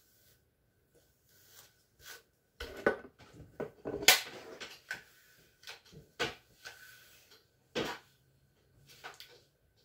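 Hairbrush and flat iron being handled while hair is brushed and straightened: a run of short knocks and rustles, the loudest about four seconds in.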